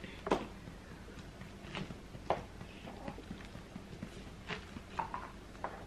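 Close-miked eating sounds from chewing fried fish: about six sharp, irregular mouth smacks and clicks over a quiet room.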